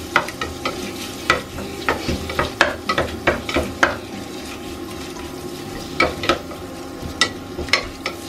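Chicken thigh pieces frying in melted butter in a pot, with a steady sizzle. A wooden spatula scrapes and knocks against the pot as it stirs, in a quick run of strokes over the first four seconds and again a little before the end.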